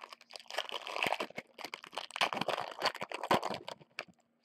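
Foil wrapper of a trading-card hanger pack crinkling and tearing as it is ripped open by hand, a dense crackle that thins out near the end.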